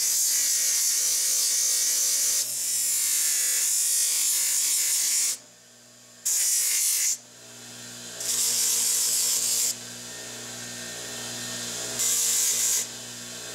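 Bench grinder running while a birch wooden knife handle is pressed against its wheel, grinding with a loud hiss in several passes. Between the passes, only the motor's steady hum is heard.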